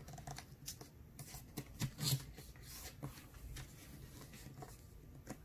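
A sheet of A4 paper rustling and crinkling faintly as hands fold it and press it flat on a tabletop, with several short rustles in the first half and quieter handling after.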